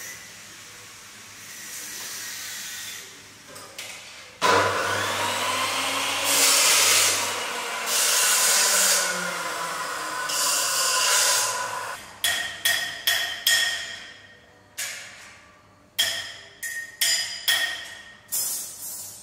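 Abrasive cut-off saw cutting steel, running loud for about eight seconds with a shifting whine, then winding down. After that comes a run of about a dozen hammer blows on steel, each one ringing.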